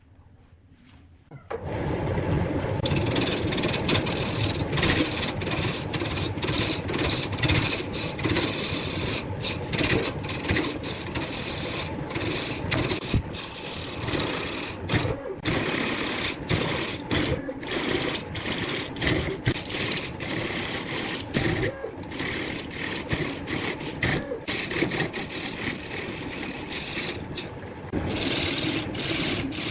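Wood lathe running with a turning tool scraping and cutting against the spinning wood. It starts about a second and a half in, and the cut breaks off for an instant many times as the tool lifts and goes back on.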